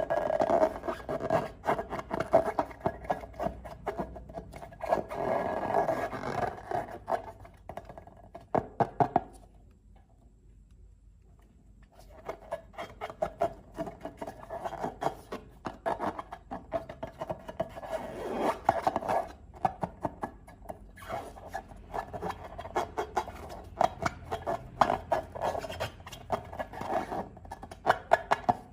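Close-up handling of slime and balloons: a dense run of sticky crackling, rubbing and clicking. It stops for about two seconds partway through, then starts again.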